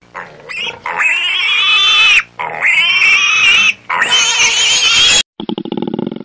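Pig squealing: three long, loud, high-pitched squeals in quick succession. About five seconds in the sound cuts off and a lower, rapidly pulsing animal sound begins.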